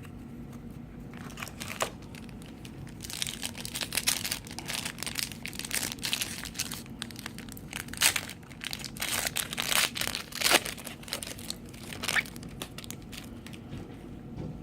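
Foil trading-card pack wrapper crinkling and tearing as it is handled and ripped open, in irregular crackly bursts for most of the time.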